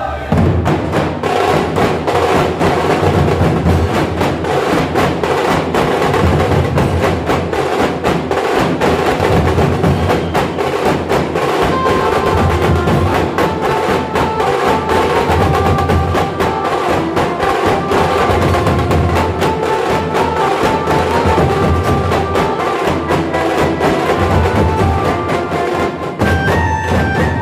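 Nashik dhol and tasha drums playing a fast, dense processional rhythm, with a pitched melody line over the drums in the middle part.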